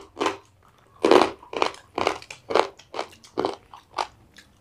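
Crunching and chewing as a person bites through the shell of a small freshwater crab cooked in curry: a quick run of crisp crunches, two or three a second.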